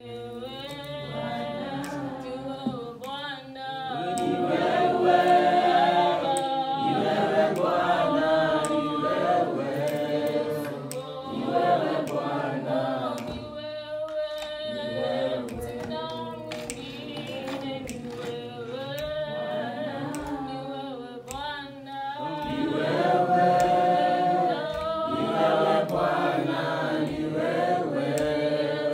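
A choir singing, with long held notes and voices sliding between pitches.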